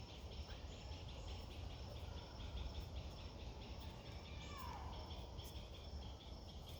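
Faint insect chirping in a quick, even rhythm, with a short falling whistle about two-thirds of the way through.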